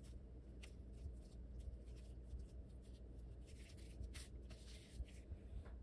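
Faint, scattered rustling and scratching of a gloved hand pressing a minced-meat patty into frying powder on a metal tray, coating it.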